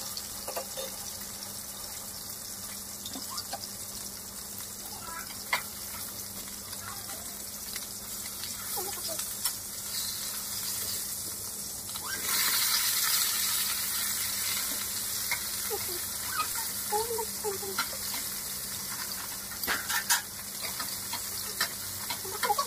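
Whole fish shallow-frying in hot oil in a wok: a steady sizzle with scattered light clicks and pops. A louder hiss swells for a few seconds a little past halfway.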